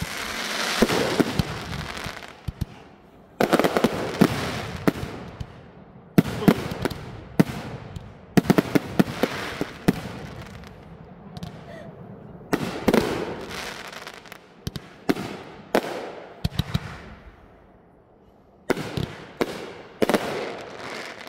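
A fireworks display going off in repeated volleys: clusters of sharp bangs and pops every few seconds, each fading away before the next. A short lull comes near the end before one more volley.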